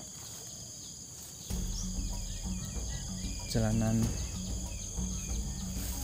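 Steady high-pitched chorus of insects. From about one and a half seconds in, a louder low rumble of walking and handling noise on the microphone runs under it.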